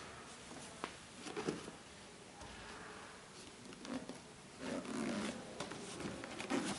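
Sneakers and a cardboard shoebox being handled and moved on a table: a few light knocks and taps, then a scuffing slide of the box a little past halfway.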